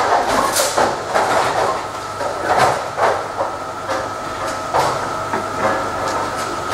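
Bowling alley noise from a nine-pin hall: balls rumbling down the lanes and irregular sharp clacks of balls and pins striking, over a steady high whine.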